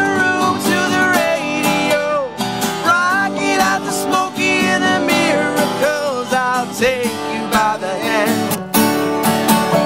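Live acoustic country music: several acoustic guitars strumming, with a slide guitar played flat on the lap carrying a gliding melody.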